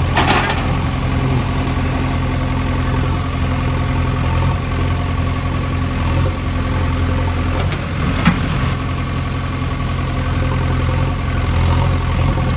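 Steady engine-like idling hum, with a short sharp knock about eight seconds in.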